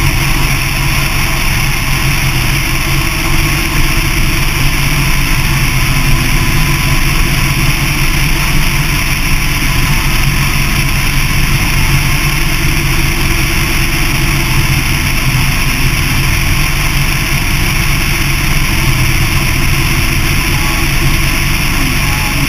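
Motorcycle cruising at highway speed: a steady engine drone under constant wind and road rush.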